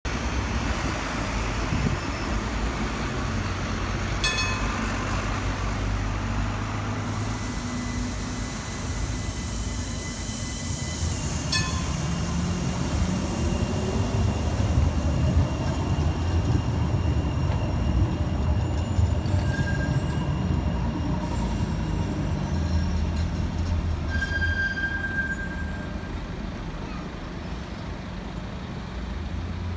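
Vossloh Citylink Class 399 tram-train moving off from a street stop and running past, with two short beeping signals early on and a high squeal from the wheels on the curved street track later.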